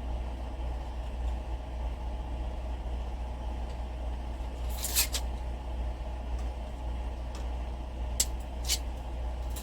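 A steady low hum, with a brief clatter of sharp clicks about halfway through and three more sharp clicks near the end.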